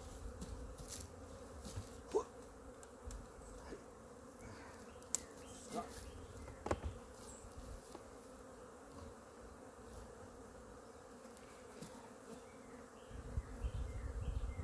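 Honeybees buzzing around their hives, a steady hum with a few brief, louder sounds standing out. A low rumble comes in near the end.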